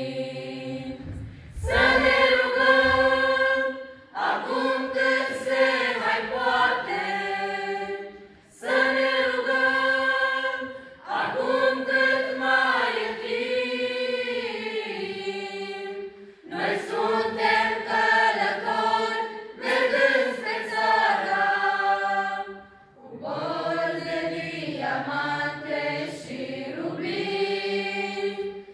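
A choir of young women singing unaccompanied in sung phrases a few seconds long, with short pauses for breath between them.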